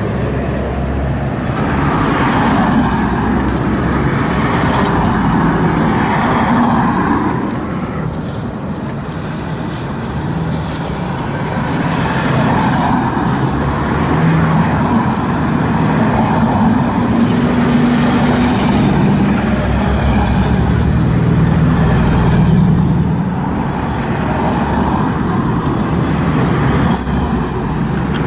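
Road traffic: a steady rumble of car and truck engines and tyres that swells and eases as vehicles pass, with a brief lull about a third of the way through.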